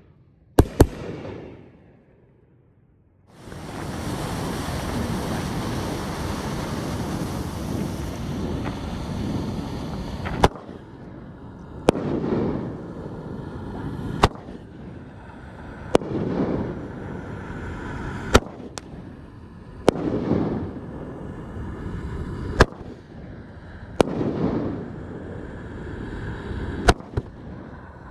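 Aerial fireworks firing outdoors. A single sharp bang comes about half a second in, then a steady rushing noise lasts several seconds. From about ten seconds in, shots go off one at a time roughly every two seconds, each a sharp report followed by a swell of noise from the shell breaking.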